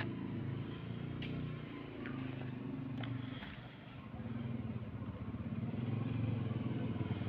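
An engine running nearby: a low, steady drone with several pitched overtones that waver slightly and dip briefly a little past the middle, with a couple of faint knocks.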